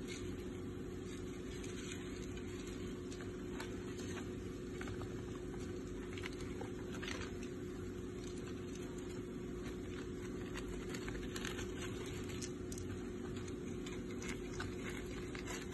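A steady low hum runs throughout, with faint scattered light ticks and rustles over it.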